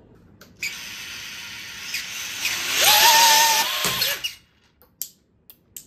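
Small brushless quadcopter motors spin homemade 3D-printed ducted fans, giving a hissing rush of air with a high whine. The whine rises in pitch as the throttle comes up and is loudest about three seconds in, then cuts off after about four seconds. The fans make far too little thrust to lift the drone off the floor.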